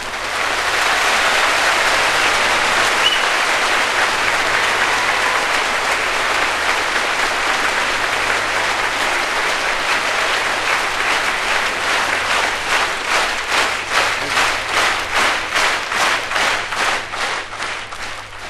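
Concert audience applauding at the end of a song. About twelve seconds in, the applause turns into rhythmic clapping in unison, about two claps a second.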